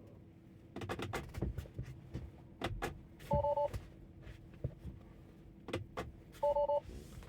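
Tesla Model 3's in-cabin alert chime sounding twice, about three seconds apart, each a short pulsed two-tone beep, over faint scattered clicks and low cabin noise.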